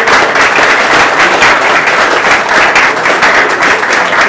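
Audience applauding: many people clapping at once, loud and steady.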